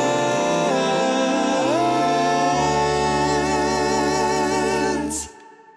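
Song with held sung notes in harmony, a deep bass note joining about halfway through; the music stops abruptly near the end.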